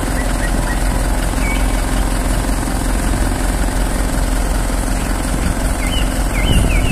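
Truck-mounted aerial work platform (skylift) with its engine running steadily while the hydraulic boom lifts the basket, with a few faint high chirps near the start and again near the end.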